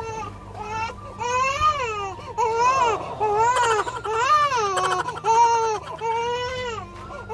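Two-month-old baby crying hard: a run of loud, high-pitched wails, each rising and falling in pitch, coming one after another about once a second.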